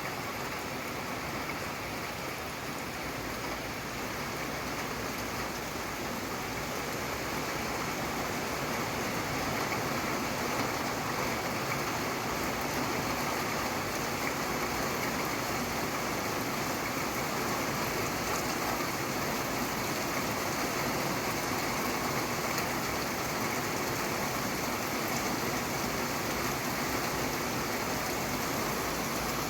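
Steady rainfall, an even hiss of rain with no thunder or other sounds standing out.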